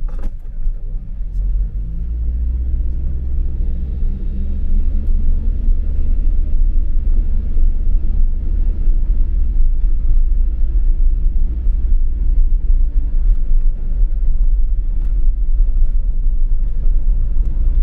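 Car driving on a paved road, its engine and tyre rumble heard from inside the cabin as a steady low drone. The engine note rises and grows louder a few seconds in, then holds steady.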